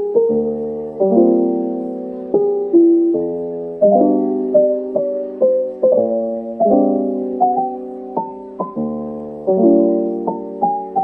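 Background piano music: slow chords and melody notes, each struck and left to fade before the next, about one a second.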